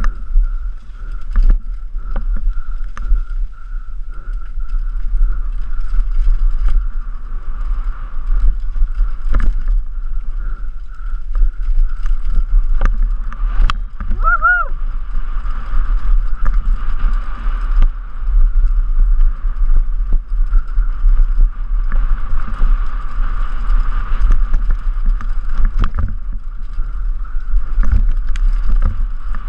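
Downhill mountain bike ridden fast over a rough dirt trail, heard through a helmet camera: wind rumbling on the microphone, a steady rattling hiss of tyres and bike, and frequent knocks from bumps. A short high rising-and-falling tone about halfway through.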